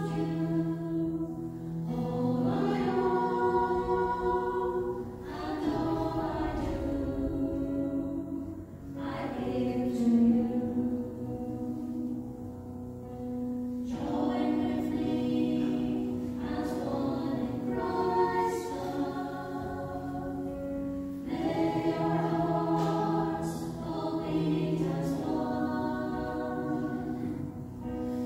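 Choir singing a slow offertory hymn in long, held phrases.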